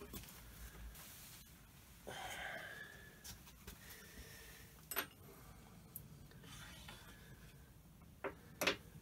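Metal parts being handled on a lathe's chip tray: a brief scrape about two seconds in, a single click near the middle, and two sharp metal clinks close together near the end.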